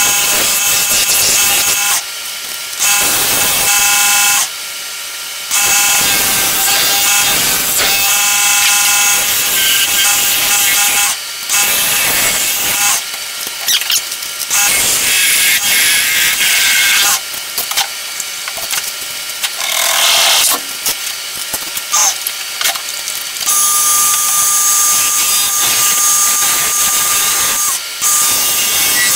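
Turning gouge cutting a spinning wood-and-acrylic blank on a lathe: a loud hissing scrape in long passes, broken by several short pauses, over a steady whine.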